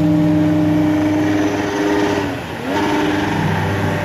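Outboard motor running at speed on a boat, a steady engine note that dips briefly a little past halfway, then rises again.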